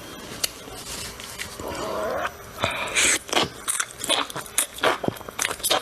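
Close-miked mouth sounds of a person eating enoki mushrooms: chewing with wet smacks and clicks, getting faster and louder about halfway through.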